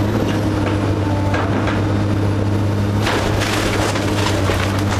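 Komatsu PC270LC hydraulic excavator's diesel engine running steadily under load, with wood cracking, splintering and crunching as the machine tears into a house. The splintering gets denser from about three seconds in.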